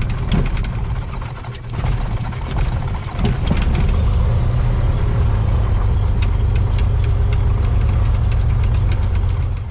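Cessna 182 Skylane's piston engine running just after start. The level is uneven for the first three seconds or so, then settles into a steady run from about three and a half seconds in.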